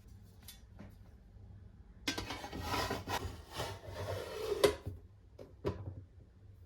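Kitchen handling sounds: a rasping, scraping rub for about two and a half seconds, ending in a sharp knock, followed by a few light clicks.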